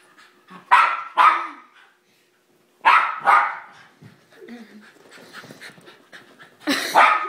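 Pet dog barking excitedly at something on the television, in pairs of loud, sharp barks: two quick barks about a second in, two more about three seconds in, and another two near the end.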